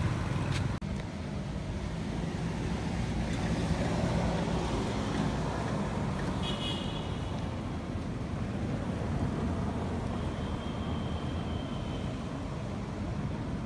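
Steady low outdoor rumble, with a brief high-pitched chirp about six and a half seconds in.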